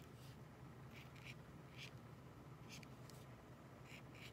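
Faint short scratches of a Posca paint marker's tip dabbing and stroking on acrylic paper, several separate strokes spaced irregularly, over a low steady hum.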